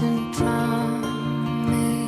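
Soft background music with plucked acoustic guitar, gentle and lullaby-like.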